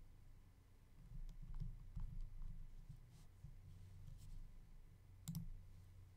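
Faint, scattered clicks of a computer mouse and its scroll wheel, with a sharper double click about five seconds in, over a low steady hum.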